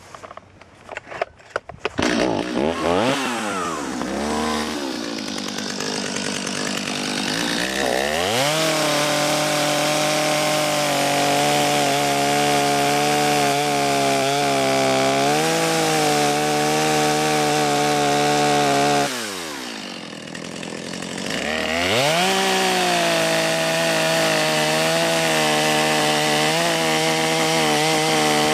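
Two-stroke chainsaw starting up about two seconds in, then revved to full throttle and held there while cutting the wedge-shaped felling notch into the tree trunk. Near the middle it drops briefly to a low idle, then goes back to full throttle for the rest of the cut.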